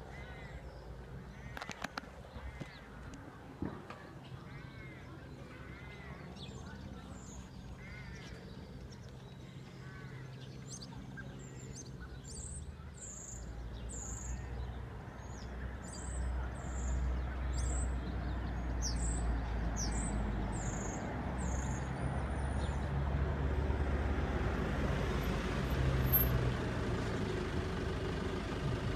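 Birds call in short, repeated bursts, then high chirps. A low engine rumble with steady low tones builds from about halfway in and is loudest near the end.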